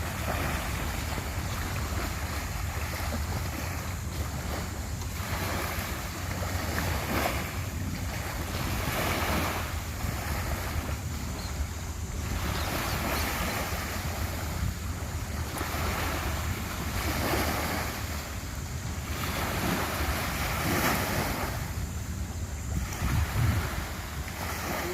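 Sea waves washing in repeated surges about every two seconds, with wind buffeting the microphone as a steady low rumble.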